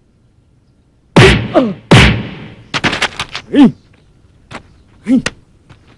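Film fight sound effects of Muay Thai blows: a heavy strike with a shout about a second in, a second heavy strike just after, then a quick run of sharp smacks, with short grunts from the fighters.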